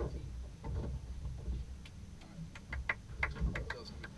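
A run of irregular sharp clicks and light taps about two to four seconds in, over a low steady rumble.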